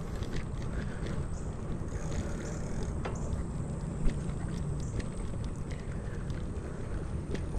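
Wind rumble and road noise of a bicycle ride on a GoPro's microphone, with scattered clicks and rattles and one sharp knock about four seconds in.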